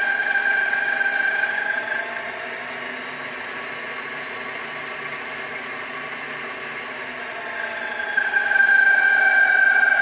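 Sumore 7x14 mini lathe running with its new 4-inch three-jaw chuck spinning, its motor and spindle drive whining steadily. About two seconds in the speed is turned down and the whine falls in pitch and loudness. Near the end it is turned back up and the whine rises again.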